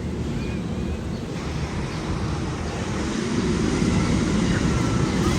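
Magnum XL 200 roller coaster train running on its track, a steady low rumble with wind buffeting the microphone, growing louder about three seconds in.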